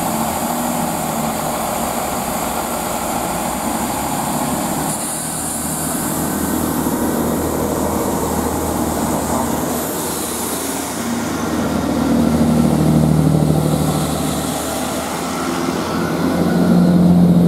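Great Western Railway Class 165 diesel multiple unit pulling out of a station, its underfloor diesel engines running under power as the carriages pass close by. The engine note swells twice in the second half as engines go past.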